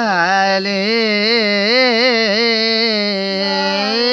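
A man's voice singing a qasida, drawing out one long melismatic note whose pitch wavers up and down in quick ornaments. About three seconds in, a second steady note comes in a little higher.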